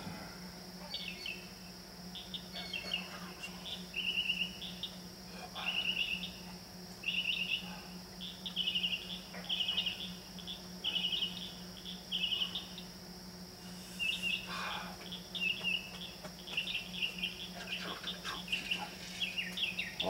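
Northern mockingbird singing at night: a string of short phrases of rapidly repeated notes, each phrase changing to a different song, with a short pause partway through. Under it runs a steady insect chorus and the low hum of a freezer.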